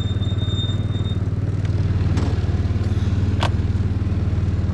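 Side-by-side utility vehicle's engine running steadily with a fast low pulsing. Two sharp clicks come about two and three and a half seconds in.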